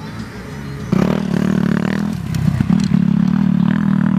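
Motorcycle engine starting up abruptly about a second in and running at a steady speed, its pitch dipping and rising briefly once near two seconds.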